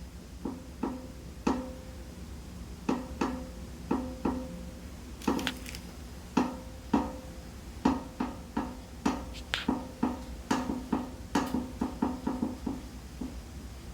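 Secretlab Omega office chair creaking over and over as the sitter shifts their weight: dozens of short, irregular creaks and clicks, many with a brief ringing note. The owner describes the creak as light but annoying, a noise the chair has developed after two months of use.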